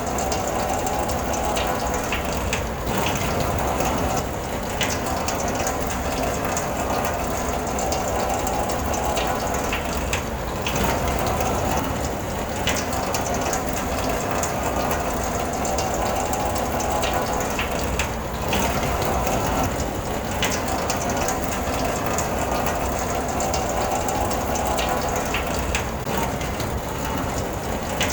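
Rain falling on a car, heard from inside the cabin: a steady, dense patter, with a faint brief sound that comes back in pairs every several seconds.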